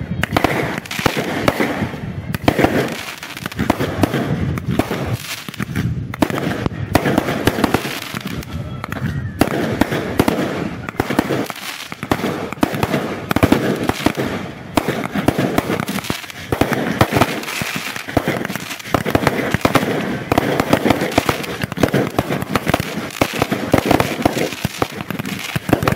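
Fireworks and firecrackers going off at ground level: a dense, unbroken run of bangs and crackles as rockets and fountains are lit one after another.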